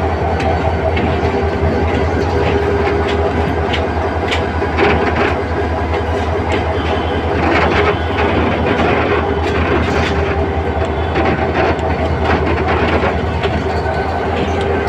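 A 1500 HP diesel locomotive running as it rolls slowly along the track: a steady low engine drone with irregular clicks and clacks from the wheels over the rails.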